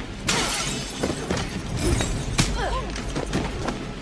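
Hand-to-hand fight sound effects from an action film: sharp hits and body thuds, the clearest a moment after the start and another past the middle, over a tense action score.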